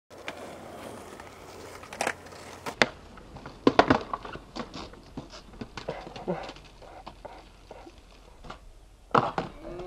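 Skateboard on concrete: wheels rolling, then sharp clacks of the tail popping and the board slapping down and clattering as it is flipped. The loudest cluster comes about four seconds in, and another loud pair of clacks comes near the end.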